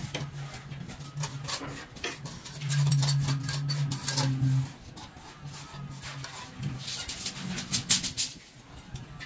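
Hand plastering with sand-and-cement mortar: a trowel scraping and tapping against the wet mortar, with a low steady hum that is loudest for about two seconds near the middle.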